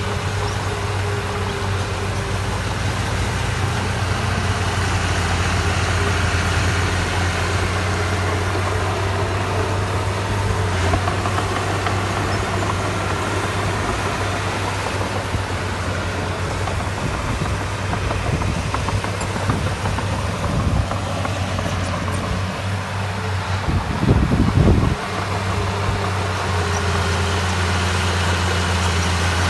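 Heavy earthmoving machine's diesel engine running steadily with a constant low hum. It is briefly louder for about a second roughly three-quarters of the way through.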